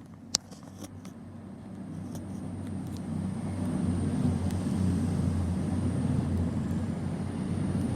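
CrossCountry Voyager diesel multiple unit approaching and passing, its underfloor diesel engines giving a low drone that grows steadily louder over the first few seconds and then holds. A single sharp click sounds just before it builds.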